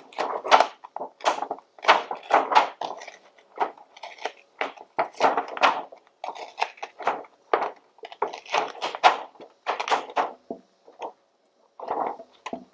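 Black plastic isolator sheet being peeled back by hand from the LiFePO4 cells it is glued to, crinkling and crackling irregularly as it flexes and comes away from the adhesive.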